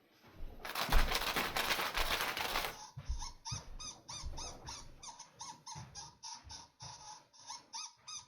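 An electronic cat toy giving off a string of short, evenly repeated squeaky chirps, about three a second, like a sampled bird or mouse call. It is preceded by about two seconds of noisy rustling.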